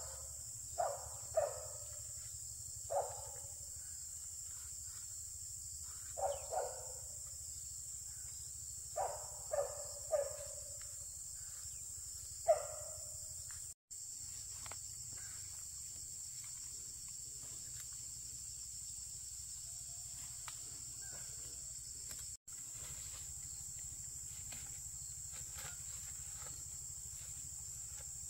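A dog barking: about nine short barks in loose clusters through the first half, then it stops.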